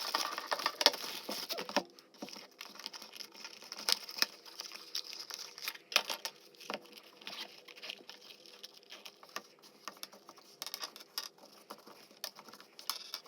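Unboxing noises: packaging rustling and crinkling densely for about the first two seconds, then scattered light clicks, taps and rustles as the box and the small items and cables inside are handled.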